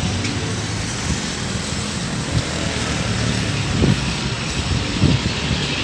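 Steady low drone of a motor vehicle engine running in street traffic, with a couple of short soft knocks about four and five seconds in.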